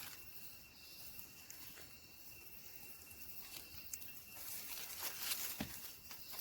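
Faint outdoor ambience in vegetation: soft rustles and scattered small clicks, with a steady high tone that stops about four seconds in.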